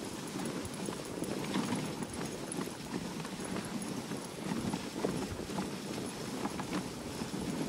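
Sled-dog team running on packed snow: a rapid, irregular patter of many paws.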